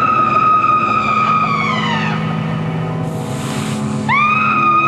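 A spooky sound effect played back from a 1988 sound-effects cassette: two long wailing cries, each rising, holding and then falling away. A short hiss comes between them, and a steady low hum runs underneath.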